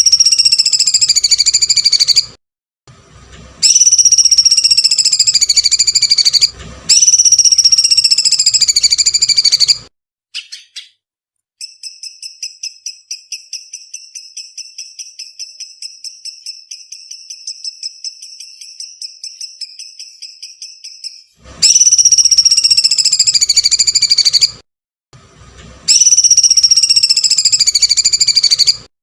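Songbird masteran recording: loud, long, high calls that fall slightly in pitch, each lasting two to three seconds, repeated in phrases, with a long fast trill of rapid pulses in the middle that runs for about nine seconds.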